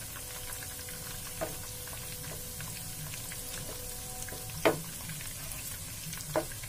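Chopped cashews and almonds sizzling steadily in hot desi ghee in a nonstick frying pan, stirred with a wooden spatula that knocks against the pan three times, loudest a little under five seconds in.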